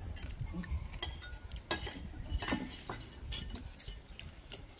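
Cutlery clinking against plates and bowls during a meal: a scatter of sharp clinks at irregular intervals over a low background rumble.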